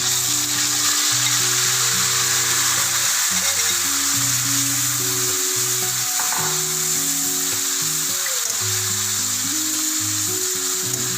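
Curd-and-vinegar marinated chicken sizzling steadily as it fries in hot oil in a kadhai. Background music with slow, held notes plays underneath.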